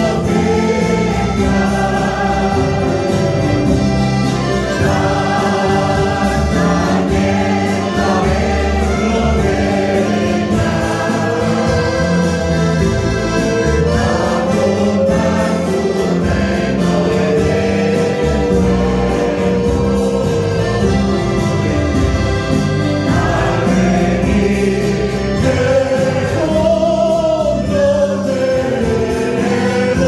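Church choir singing a Spanish-language hymn, accompanied by acoustic guitars, a mandolin and an accordion.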